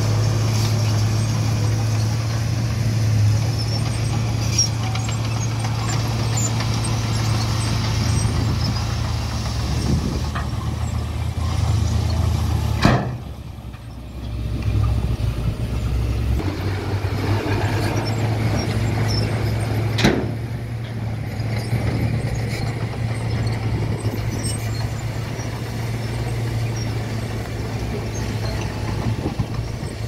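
Dump truck's diesel engine running with a steady low hum while the raised bed tips out a load of rock and soil. Two sharp knocks cut through, the first about halfway through followed by a brief lull in the engine, the second some seven seconds later.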